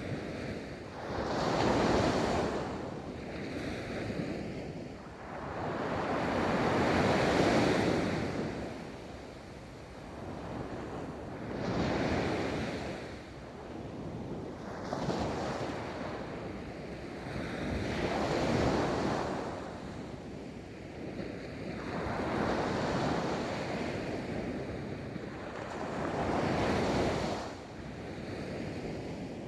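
Ocean waves breaking and washing up a beach, each surge swelling and fading every four to six seconds, with wind in the background.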